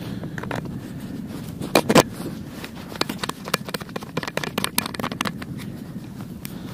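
Footsteps crunching in snow over ice: irregular crisp crunches, several a second, two louder ones about two seconds in.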